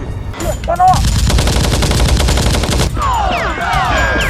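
Rapid, continuous automatic gunfire starting about a second in, from a blaster gunfight.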